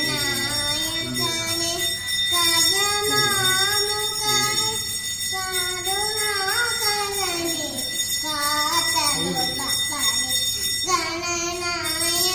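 A young girl singing solo into a microphone in melodic phrases, with short breaks between them.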